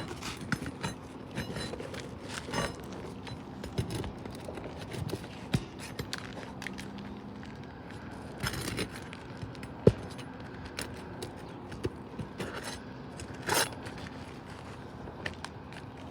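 Roofing nails being pried out from under asphalt shingles: scattered sharp metallic clicks and short scrapes, irregular, with a few louder ticks.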